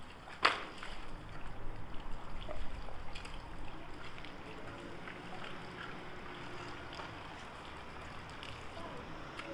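Water splashing and dribbling with a sharp knock about half a second in, then scattered small knocks and clatters for the next few seconds before it settles to a steady watery hiss.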